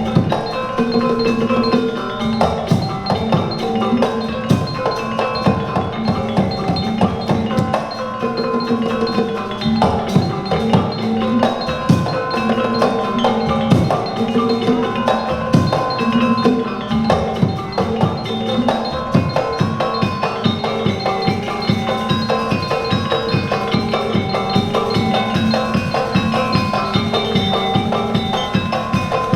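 Sundanese gamelan degung ensemble playing: tuned bronze gongs and metallophones ringing in steady melodic patterns over frequent sharp hand-drum strokes.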